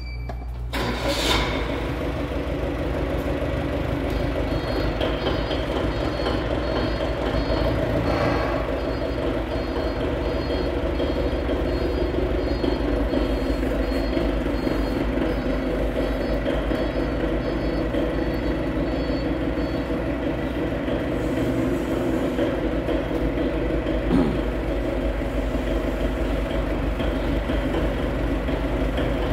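Forklift engine running steadily. Its high-pitched warning beeper sounds in a repeating pattern from about five seconds in to about twenty seconds in, and there is a single sharp knock near the end.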